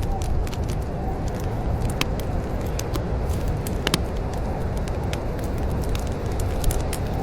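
Wood fire crackling, with irregular sharp pops and snaps, two of them louder at about two and four seconds in, over a steady low rumble.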